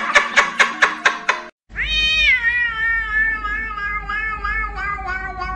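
A man laughing in quick rapid bursts over music, cut off after about a second and a half. Then a cat's long drawn-out meow, starting high, sliding down and wavering in pitch like singing.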